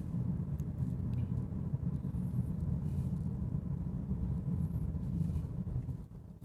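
Steady low road and tyre rumble inside the cabin of a 2018 Honda Accord driving at speed. It drops off sharply about six seconds in.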